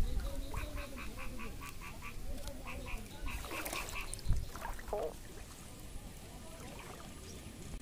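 A rapid, evenly spaced series of animal calls, about six a second, that stops about three seconds in, followed by a single low thump about four seconds in.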